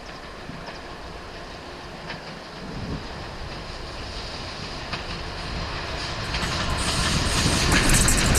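A train approaching along the track, growing steadily louder. Near the end the clatter of wheels over the rails starts to come through as a run of sharp clicks.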